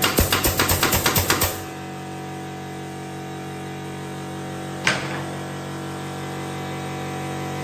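Pneumatic nail gun firing nails into a wooden ceiling batten in quick succession, about ten shots in a second and a half, then a single sharp click about five seconds in.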